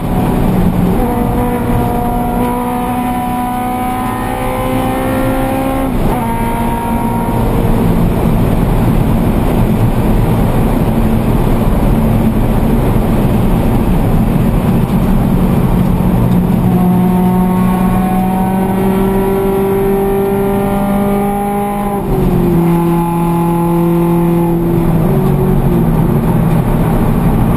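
Scion FR-S race car's flat-four engine heard from inside the cabin, pulling hard around the track with a slowly rising note. The engine note breaks about six seconds in and again near the end, with a brief dip at that second break, as the car changes gear.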